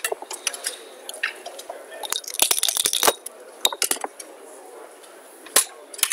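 Backgammon dice rattled and rolled onto the board, a quick cluster of clicks about two and a half seconds in, followed by a few sharp single clicks as the checkers are moved.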